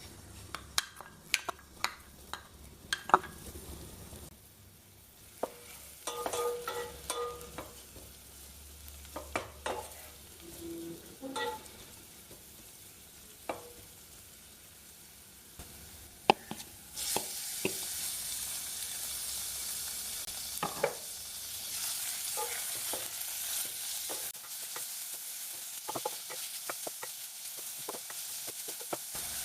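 Kitchen utensils clicking and knocking against cookware, then, a little over halfway through, food starts sizzling in hot oil in a pan, with a steady hiss and the clicks of stirring over it.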